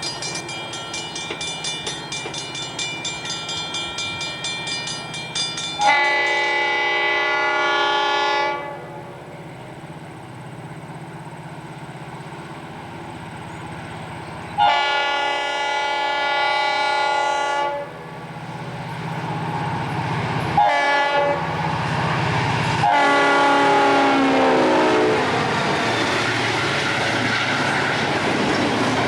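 A bell rings steadily at first. Then a diesel locomotive's air horn sounds the grade-crossing pattern: two long blasts, a short one and a final long one whose pitch drops as the train passes. The rumble and wheel clatter of the train grow louder near the end.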